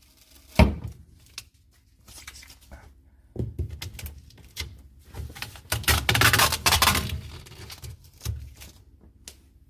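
Packing material and labels being handled: a sharp knock about half a second in, then irregular bursts of rustling and tearing, loudest from about six to seven seconds in.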